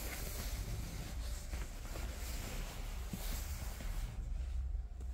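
Soft rustling of the camera being handled and moved back, over a steady low hum. The rustling fades about four seconds in.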